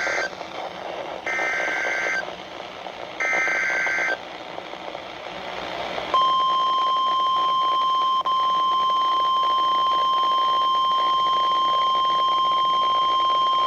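Emergency Alert System header on NOAA Weather Radio. The last of the first shrill two-tone data burst plays, then two more bursts of about a second each, about two seconds apart. After a couple of seconds of radio hiss, a single steady alert tone starts about six seconds in and holds, announcing a weather warning.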